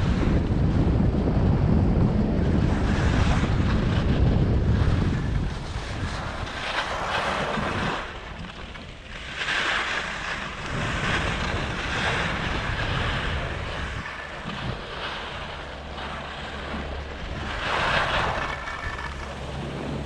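Wind buffeting an action camera's microphone as a skier runs at speed, dying down after about five seconds. Then skis hiss and scrape over packed snow in several skidded swells as the skier slows almost to a stop.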